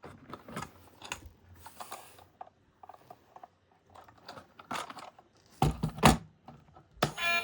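Plastic toy vehicles and packaging being handled: scattered small clicks, rattles and rustles, with two louder knocks about six seconds in. Music starts near the end.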